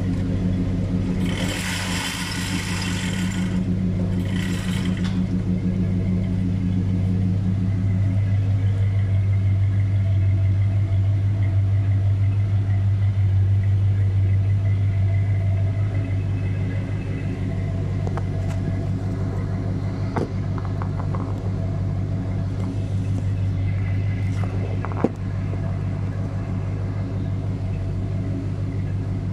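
V8 of a 1976 Lincoln Continental Mk IV running steadily through new Magnaflow Rumble mufflers and tailpipes, a deep, even exhaust rumble that swells a little in the middle. Two brief bursts of hiss come near the start, and there is a single sharp click near the end.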